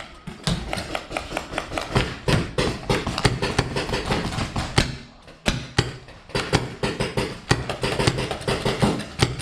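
Magazine-fed paintball marker firing in a fast, uneven string of sharp pops, several shots a second, with a brief pause about five seconds in.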